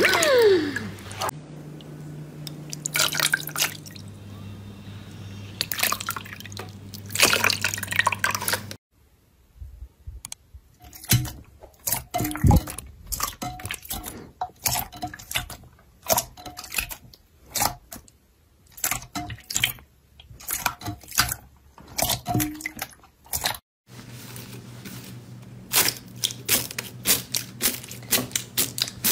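Hands squeezing and pressing slime: wet squelches and drips as clear gel slime is worked in water, then a quick run of crackles as foam-bead slime is pressed near the end. A short falling tone sounds at the very start.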